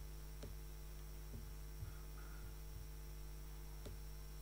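Steady low electrical mains hum from the sound system, with a couple of faint clicks.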